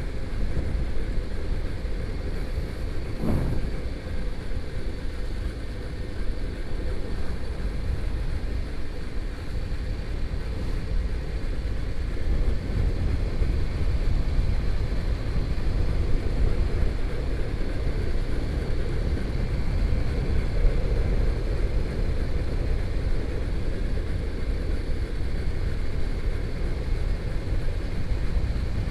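Motorcycle riding along a road: the engine runs steadily under heavy wind rush on the microphone, with one short sharp sound about three seconds in.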